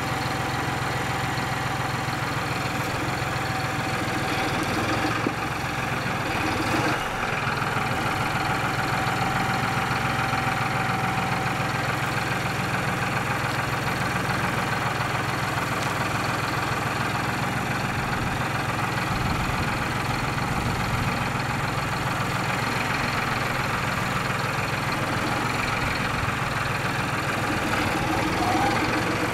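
Tractor diesel engine running steadily at low revs while its hydraulics work a front-loader-mounted arm grapple. A thin whine sits over the engine hum in the middle.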